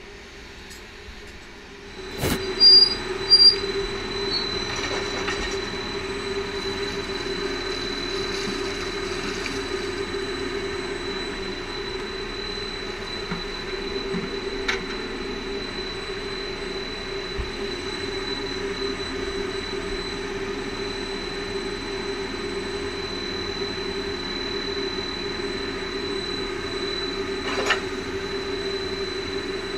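Drilling rig floor machinery running: a steady hum with a thin constant high whine over it. It starts with a sharp click about two seconds in, followed by two loud bangs, and a few faint knocks come later.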